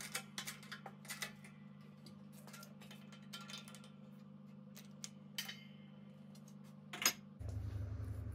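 Hand-pumped hydraulic shop press pressing a needle roller bearing into a steel bearing flange: scattered light metallic clicks and knocks as the handle is worked and the parts seat, with one sharp click about seven seconds in. A steady low hum runs underneath and shifts to a deeper hum about seven and a half seconds in.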